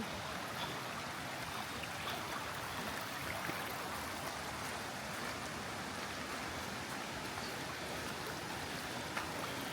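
Steady rush of flowing river water where part of the river is diverted into a mill race.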